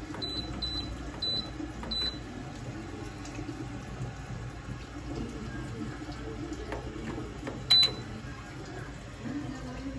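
Countertop convection oven's control panel beeping as its buttons are pressed to set the baking time: four short high beeps in the first two seconds, then a single louder beep near the end. A steady rushing noise runs underneath.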